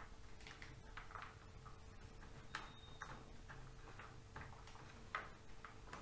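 Faint, scattered small clicks and light plastic handling from hands refitting the DVD drive connection inside an opened laptop, with a slightly louder click about five seconds in, over a faint steady hum.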